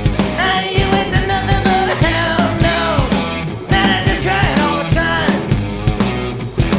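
Blues-rock band recording: drums, bass and electric guitar, with a lead line that bends up and down in pitch.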